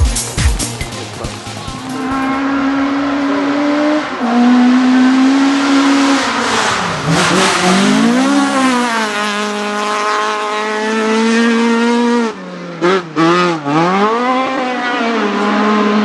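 Rally car engine at full throttle, climbing in pitch through the gears with a drop at each shift. About halfway through it falls and rises again as the driver lifts and brakes. Near the end it cuts in and out in quick blips before settling to a steady pull.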